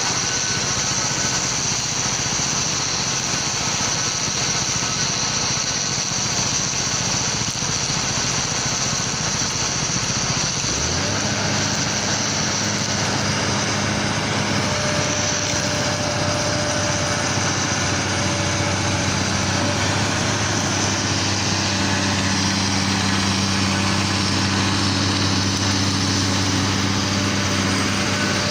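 Engines of construction machinery running steadily. About eleven seconds in, a second steady engine hum joins and holds.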